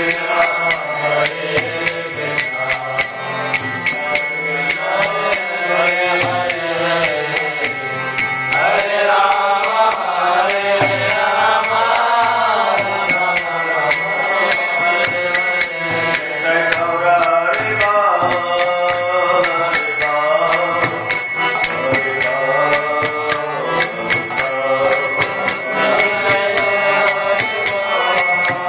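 Devotional kirtan: a man's voice chanting a melody, with small hand cymbals (kartals) struck in a steady rhythm throughout, their ringing lingering between strokes.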